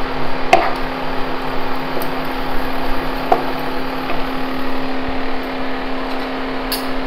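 Induction cooktop humming steadily with its cooling fan running under a hot pan, while a wooden spatula knocks against the nonstick pan about half a second in and again about three seconds in.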